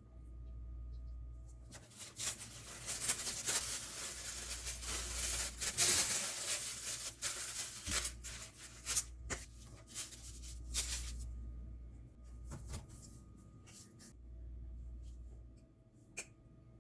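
Scratchy rustling and scraping handling noise with many small clicks as food is prepared by hand. It is dense for most of the first two-thirds, then thins to a few scattered clicks, over a low steady hum.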